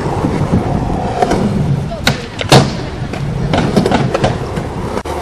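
People talking, with two sharp clacks of a skateboard hitting concrete about two seconds in.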